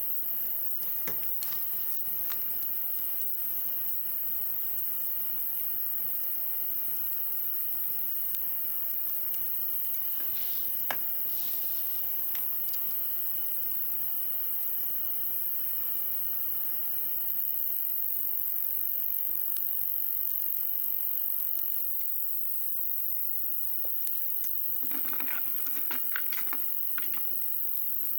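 Wood bonfire crackling with scattered sharp pops, over a steady high hiss. About three-quarters of the way through, a quick run of crackles.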